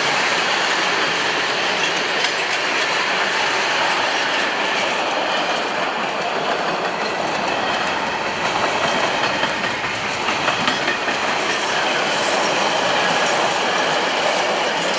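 Freight train wagons rolling past close by: a steady rumbling rush of wheels on rail with rhythmic clickety-clack over the rail joints. The clacking is sharpest about eight to eleven seconds in.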